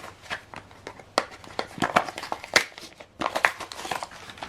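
Irregular crinkling and clicking of plastic as an ink cartridge and its packaging are handled.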